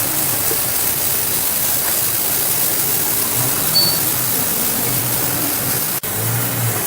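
Steady, loud hissing noise, broken by a brief dropout about six seconds in.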